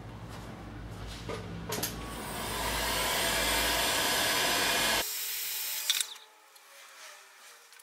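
Handheld heat gun blowing: a steady rush of air that starts about two seconds in, grows louder, and cuts off suddenly about three seconds later. A few knocks and clicks of handling come before and after it.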